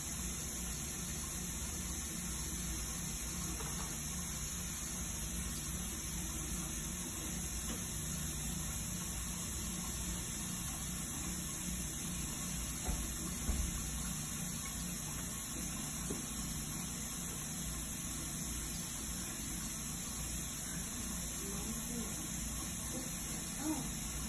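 Steady low hum and hiss of bathroom room noise, with a few faint clicks of a plastic toothbrush and a small tube being handled about halfway through and again near the end.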